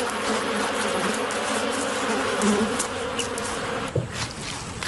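A swarm of honeybees buzzing in a dense, steady drone as they defend their hive against a raiding honey badger; the buzzing thins out about four seconds in.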